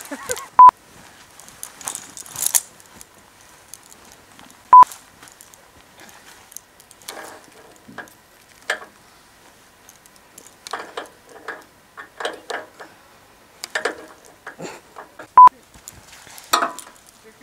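Three short, loud, single-pitch bleeps of the kind used to censor swearing: one about half a second in, one near five seconds and one near the end. Between them come quieter scattered clicks and brief mutters.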